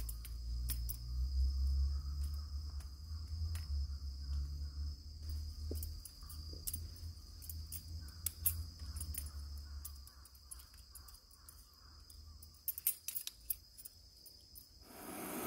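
Crickets chirping steadily and high-pitched, with scattered light metallic clicks and clinks of aluminium camp furniture being handled and set down, busiest about three-quarters of the way through. A low rumble underlies the first two-thirds.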